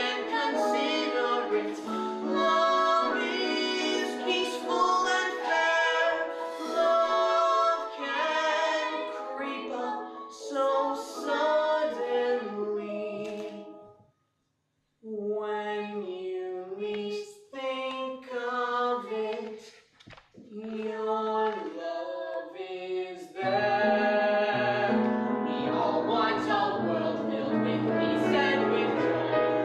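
A woman singing a show tune over instrumental accompaniment. The music breaks off for about a second midway, and a low held bass note comes in a few seconds before the end.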